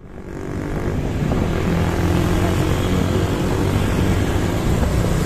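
Large bus engine running with a steady low hum, fading in over the first second.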